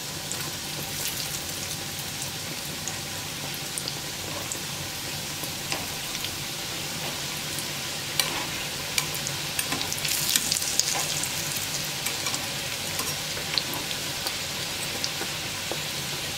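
Pişi dough rounds deep-frying in well-heated oil in a pan: a steady sizzle with constant crackling, and a few louder pops about 8 and 10 seconds in.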